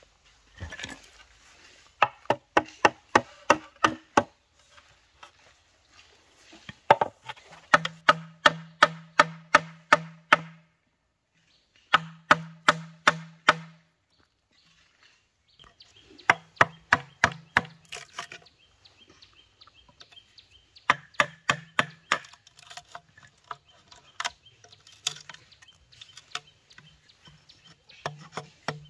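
Rapid knocks of a tool on bamboo, about four or five blows a second, in bursts of a few seconds with short pauses between, some with a low hollow ring.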